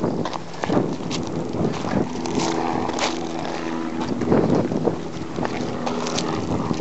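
Footsteps crunching irregularly over rough, hardened lava rock, over a steady low droning hum.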